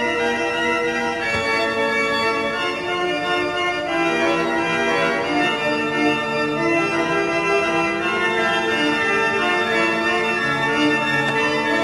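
Two-manual electric-action pipe organ playing slow chords of held, overlapping notes.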